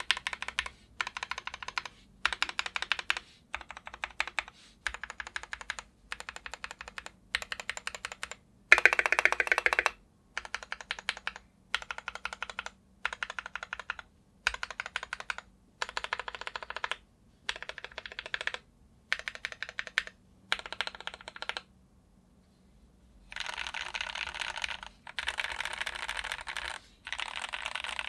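Heavy Shell Barix 87 mechanical keyboard with lubed Gateron Cap Yellow linear switches and ABS keycaps being typed on, in short runs of rapid keystrokes with brief pauses between them. A louder run comes about nine seconds in, and after a pause near the end the typing runs on longer and faster.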